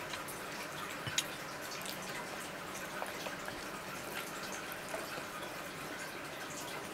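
Baby sucking and gnawing on a piece of mango held to his mouth: faint, scattered wet mouth clicks and smacks over quiet room tone, one a little louder about a second in.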